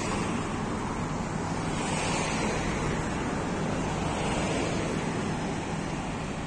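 Wind on the microphone over street traffic, making a steady, even rush with no distinct events.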